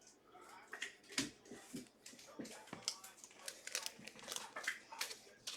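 A trading card pack being opened and its cards handled: the wrapper crinkles and the cards rustle and click in a faint, irregular string of soft crackles and ticks.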